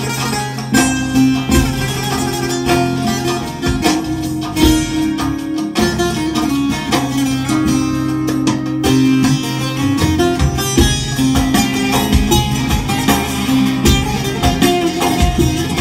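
Saz (long-necked Kurdish lute) played solo: a quick plucked melody over low notes that keep ringing for several seconds at a time.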